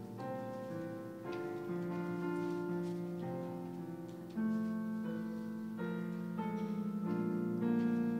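Slow keyboard music: held chords that change about once a second.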